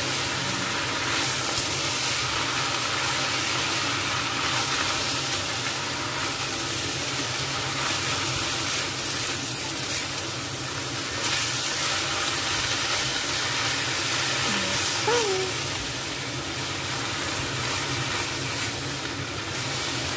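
Choy sum and garlic sizzling as they are stir-fried in a hot wok, turned over and over with a spatula.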